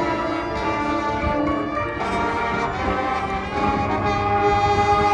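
High school marching band's brass section playing sustained chords, growing louder over the last second or two into a held chord.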